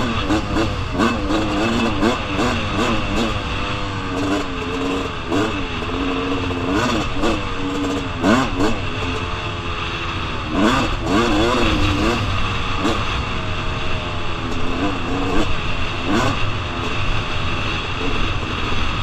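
2001 Suzuki RM250's single-cylinder two-stroke engine revving up and down as the dirt bike is ridden hard over a rough, whooped-out trail, with a few knocks from the bike hitting bumps.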